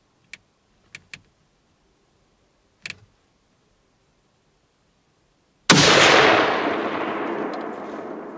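A few faint clicks, then a single loud gunshot about two-thirds of the way in: a deer hunter firing at a doe. The report echoes and rolls away slowly, still fading at the end.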